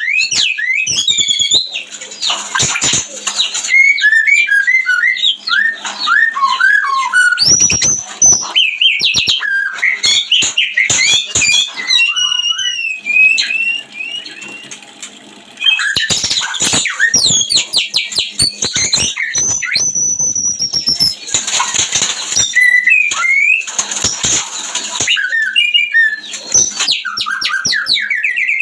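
White-rumped shama (murai batu) in breeding condition singing a loud, varied song of whistled glides, rising and falling notes and rapid trills, with a short lull about halfway through.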